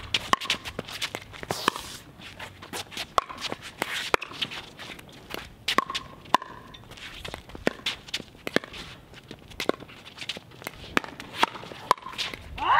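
Pickleball rally: solid paddles popping a hard plastic ball back and forth in a quick, irregular run of sharp knocks, with the ball bouncing on the hard court and players' footsteps shuffling between shots.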